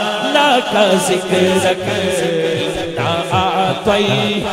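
A man singing a Punjabi naat (devotional kalam) into a microphone in long, wavering held notes, with a low pulsing backing beneath from about a second in.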